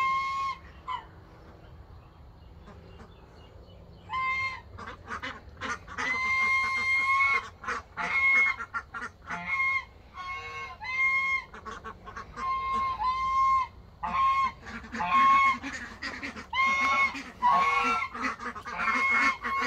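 Domestic geese honking: a couple of calls at the very start, then from about four seconds in a run of loud, overlapping honks about once a second.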